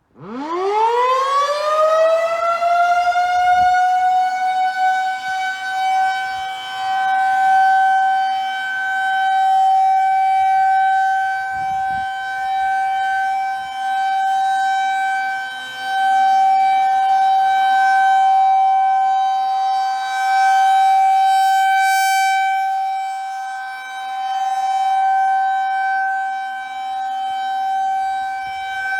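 Federal Signal 2001 tornado siren winding up from silence, its pitch climbing over about two seconds to a steady tone that it then holds. Its loudness swells and fades slowly as the rotating siren head turns: the steady alert signal of a scheduled siren test.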